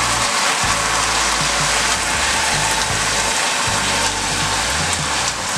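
Melted, browned sugar boiling and sizzling hard in a saucepan as hot water is poured in to turn it into caramel syrup. The sound is a steady, dense hiss.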